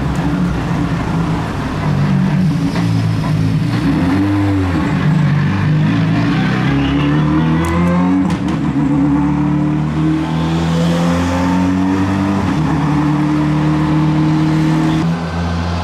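Škoda Fabia Rally2 rally cars passing close by in turn, their turbocharged engines revving up and down with throttle and gear changes. There are a few sharp clicks about halfway, then one car accelerates away with the engine note climbing steadily until a sudden cut near the end.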